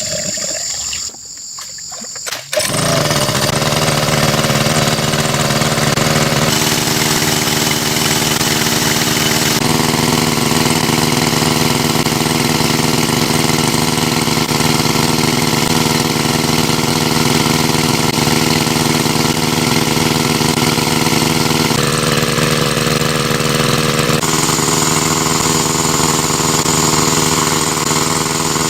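Small engine of a water pump running loud and steady, coming in about two and a half seconds in after a quieter stretch; its tone jumps abruptly a few times.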